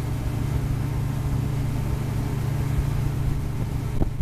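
Boat motor running steadily under way, a loud, even drone with an uneven low rumble beneath it. A short thump comes near the end.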